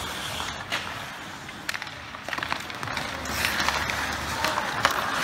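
Ice hockey play: skate blades scraping on the ice, with sharp clacks of sticks and puck scattered through. The scraping gets louder from about three seconds in.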